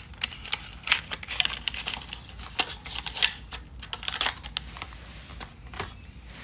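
Toy packaging being handled and opened by hand: a quick run of sharp clicks, taps and crinkles, busiest in the first few seconds and thinning out near the end.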